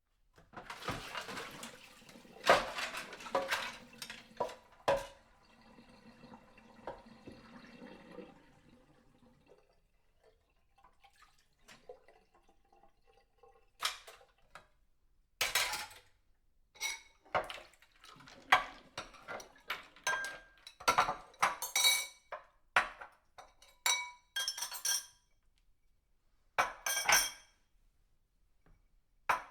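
Washing dishes by hand: running water with plates, glasses and cutlery clattering for the first ten seconds or so, then, after a short lull, a series of sharp clinks and clatters of crockery and silverware being handled.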